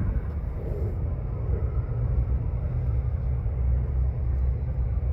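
Distant jet airliner engines giving a low, steady rumble that grows slightly louder.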